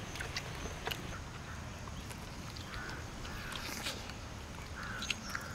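Faint bird calls, a few short harsh calls, over a steady outdoor background with scattered light clicks.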